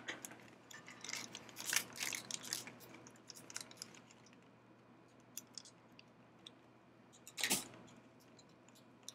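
Clear plastic zip-lock bag crinkling and rustling while it is handled, in short bursts over the first three seconds and once more, louder, about seven and a half seconds in.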